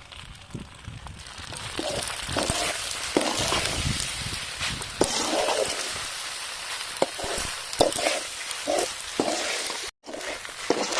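Chicken pasta sizzling as it fries in a pan, a steady hiss with scattered knocks and scrapes of a utensil or lid against the pan.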